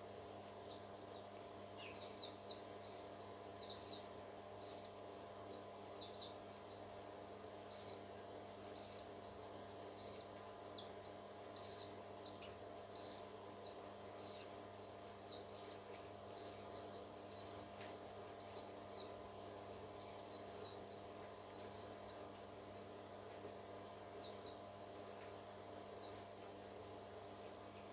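Parrot chicks chirping in quick, high, thin clusters again and again, densest and loudest around the middle, over a steady low electrical hum.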